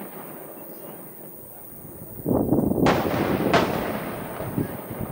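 Aerial firework shells bursting: the rumble of an earlier burst fades away, then two sharp bangs come about three seconds in, under a second apart, each followed by a rolling, echoing rumble.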